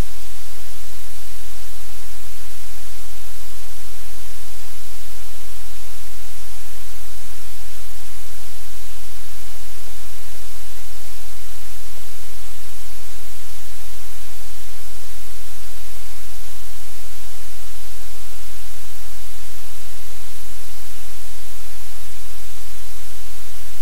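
Loud, steady static hiss with a low hum beneath it, unchanging throughout; no other sound stands out.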